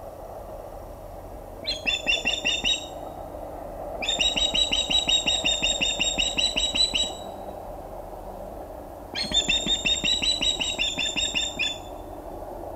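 An osprey giving three bouts of rapid, repeated high-pitched alarm calls, the middle bout the longest. This is the call that means another osprey is too close, an intruder near the nest.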